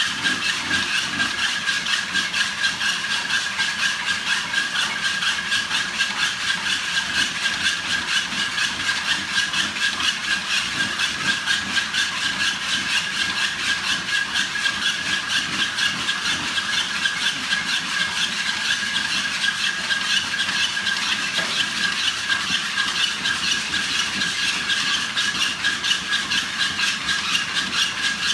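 Several treadmills running together, their motors giving a steady high whine, with a fast, even beat of dogs' paws stepping on the moving belts.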